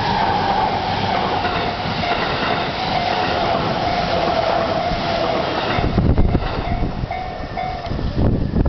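JR E233-series electric train running past at a level crossing, its running noise carrying a steady whine that slowly falls in pitch. About six seconds in the train noise thins out and wind buffets the microphone.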